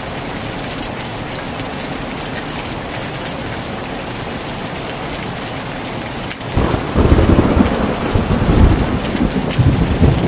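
Heavy rain falling steadily, then about two-thirds of the way in a loud clap of thunder breaks in and goes on rumbling low and heavy over the rain.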